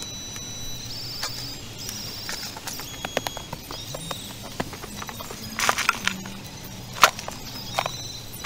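Stones knocking and clattering as loose rocks and soil are gathered up by hand in a rocky pit: irregular sharp clacks, a quick cluster just before the middle of the second half and the loudest single knock near the end.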